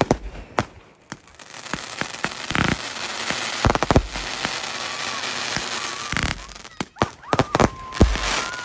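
Aerial fireworks bursting. There are sharp bangs at the start, then a dense crackling hiss for several seconds with a few bangs through it, and a quick run of bangs near the end.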